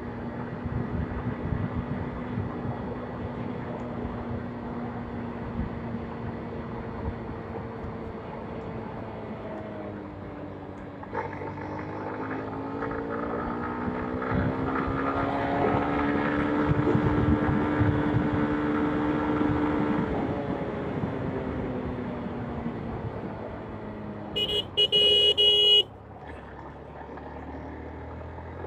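Honda X Blade 160's single-cylinder engine running under way, heard from the rider's seat with wind buffeting the microphone; its pitch drops, climbs again as the bike pulls, holds, then eases off. Near the end a horn sounds loudly once for about a second.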